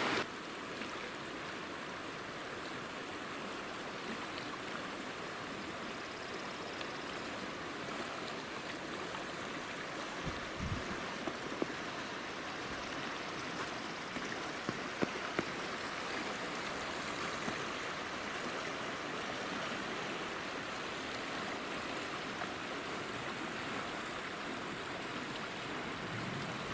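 Shallow mountain creek flowing over stones: a steady rush of running water, with a few faint clicks around the middle.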